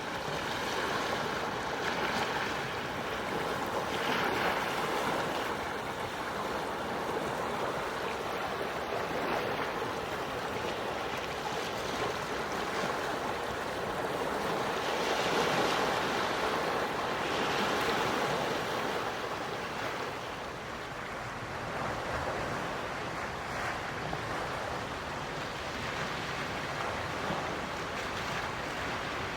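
Quiet ocean waves washing ashore, a steady rush of surf that swells and eases every few seconds.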